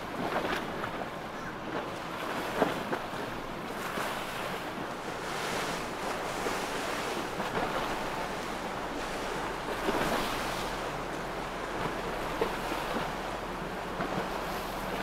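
Waterfront ambience: wind buffeting the microphone over a steady wash of water and boat noise, with a few short knocks scattered through it.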